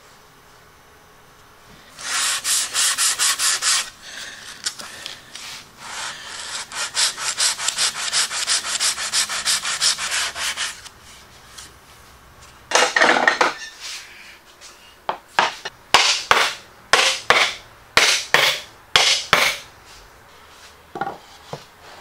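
Hand sanding of dried wood putty along the inside edge of an MDF template opening, with sandpaper rubbing on the wood. Quick back-and-forth strokes come in two runs, then a string of slower single strokes; the putty is being sanded back to give the template a looser fit.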